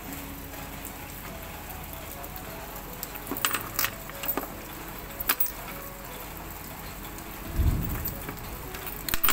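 Steady rain falling on a garden, an even hiss, with a few sharp taps between three and five seconds in and a brief low thump near eight seconds.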